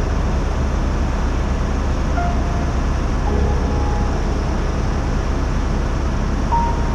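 Helicopter in flight: steady rotor and engine noise with a heavy low rumble.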